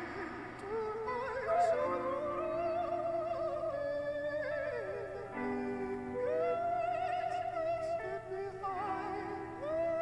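Music: a wordless, wavering melody with strong vibrato, like operatic singing, over held lower notes and chords.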